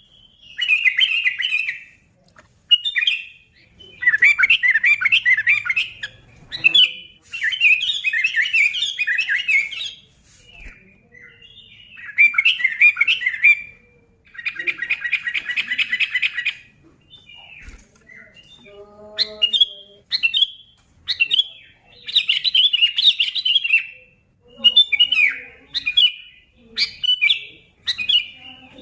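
Sooty-headed bulbul (kutilang) singing: bubbly whistled phrases a second or two long, with short pauses between them, and one dense rapid chattering run about halfway through.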